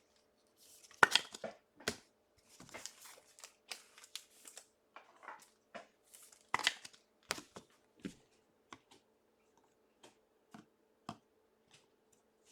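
Trading card packs and cards being handled: wrappers crinkling and cards flicked through, in scattered short rustles and ticks, the loudest about a second in and again past six seconds.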